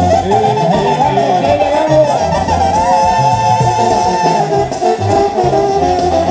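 Background music: a melody with a wavering lead line over a steady pulsing bass.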